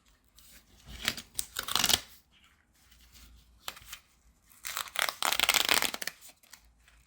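Plastic and cardboard retail packaging being torn open and crinkled by hand, in two main bursts: about a second in, and again about five seconds in.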